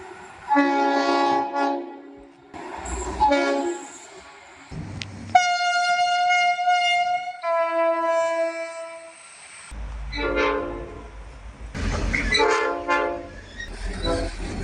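Train horns sounding in a string of separate blasts, several of them chords of several notes. About five seconds in, a high single-note horn is held for about two seconds and is followed straight away by a lower single note. A low engine rumble runs under the later chord blasts.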